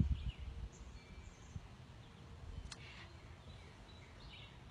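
Faint outdoor ambience with a few faint bird chirps. A low rumble of the phone being handled at the start and a single click near the middle.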